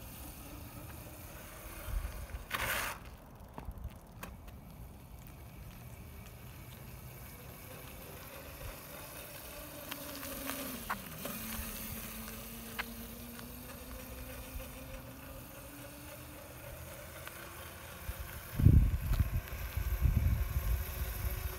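Razor MX250 electric dirt bike's motor whining faintly, its pitch rising and falling as the bike speeds up and slows down. A short loud hiss about two and a half seconds in, and loud low rumbles near the end.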